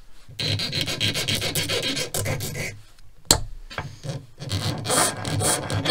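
Flat hand file rasping in quick back-and-forth strokes on a piece of steel paperclip wire clamped in a bench vise, smoothing off its sharp cut ends. The filing pauses about three seconds in, with a single sharp knock, then starts again.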